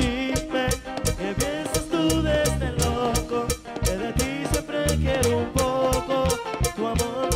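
Live Latin band music: an acoustic-electric guitar picks a wavering lead melody over bass guitar and percussion keeping a steady beat.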